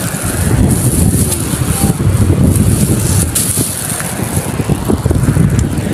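Wind buffeting the microphone: a loud, uneven low rumble that swells and dips, with a few faint clicks over it.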